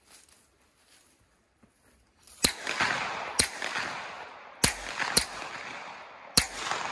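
Five suppressed pistol shots from a 9mm fitted with a Microtech Defense Industries R2K9 suppressor in its short K configuration, run wet, firing 115-grain rounds. The first comes about two and a half seconds in and the rest follow about a second apart. Each shot is followed by a long echo rolling back from the surroundings.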